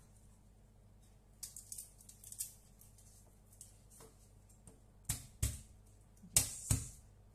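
Soft papery rustling of garlic cloves being peeled, then four sharp knocks of a kitchen knife striking a plastic cutting board as the cloves are cut.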